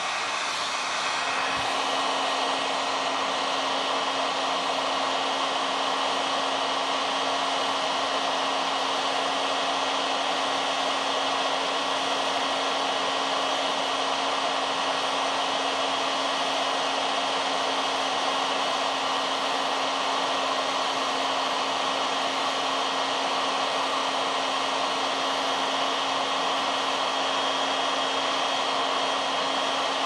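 Handheld hot air gun blowing steadily, a rush of air over a constant motor hum, getting louder about a second and a half in. It is heating a phone's Type-C charging connector to melt the solder so the connector can be lifted off.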